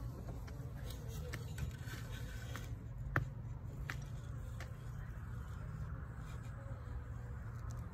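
Steady low outdoor rumble with scattered light clicks and taps, and one sharper click about three seconds in.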